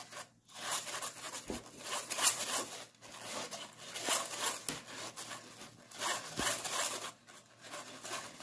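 Wire whisk scraping against a stainless steel mesh sieve in repeated scratchy strokes, working lumps of crepe batter through the mesh.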